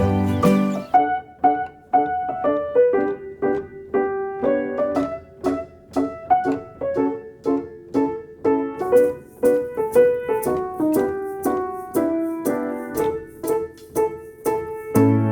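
Background music: a piano playing a slow melody of single struck notes. The low bass notes drop out about a second in and come back near the end.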